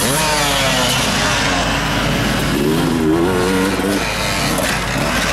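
Motocross motorcycle engines revving hard as bikes take a jump one after another. The pitch falls about the start as one bike goes over and away, then another engine rises and wavers in pitch a few seconds in.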